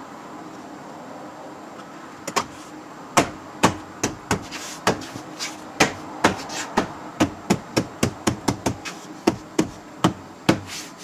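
Front door latch and lock mechanism of a 2013 Ford Escape being worked by hand: about two dozen sharp plastic-and-metal clicks and knocks, starting about two seconds in and coming faster toward the end, as the newly fitted latch is pushed home and its locks tried.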